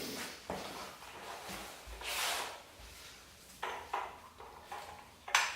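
Scattered clicks, light knocks and rubbing of metal parts being handled while bolts are undone on an engine mounting bracket, with a brief hiss about two seconds in and a sharper click near the end.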